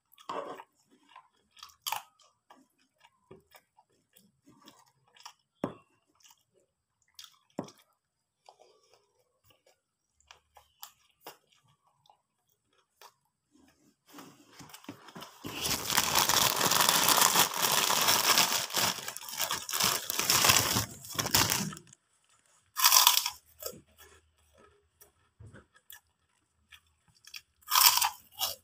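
A person chewing and crunching food close to the microphone: scattered small mouth and chewing clicks at first, then about six seconds of loud, continuous crunching from about halfway through, with shorter crunchy bites near the end as he bites into a crisp fried piece.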